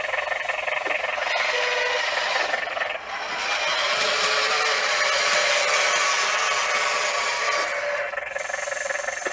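RC Unimog truck's motor and gearbox whining and grinding as it drives through the snow, the pitch shifting with its speed, with a brief dip about three seconds in.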